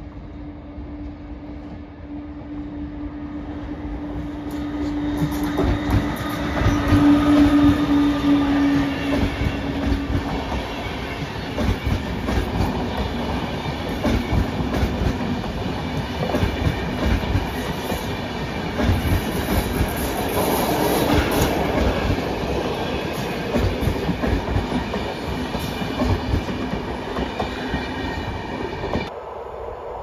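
Electric locomotive and passenger coaches passing close by. A steady droning tone grows louder as the train comes up, then the wheels clatter over the rail joints as the coaches roll past for about twenty seconds. The sound cuts off suddenly near the end.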